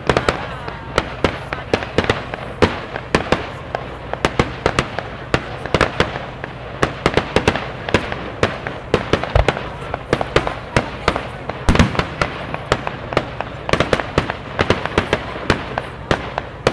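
Fireworks display: a dense, irregular crackle of small sharp pops, several a second, with two deeper booms past the middle.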